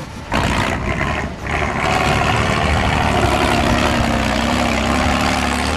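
Heavy off-road truck engine pulling hard under load, loud and steady after a sudden rise a moment in, with a tone that creeps slowly up in pitch in the second half.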